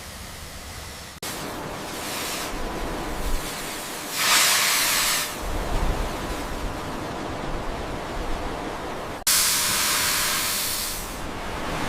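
Steam tank locomotive hissing steam. The hiss jumps in level suddenly about a second in, and there are two louder blasts of escaping steam, a short one about four seconds in and a longer one just after nine seconds.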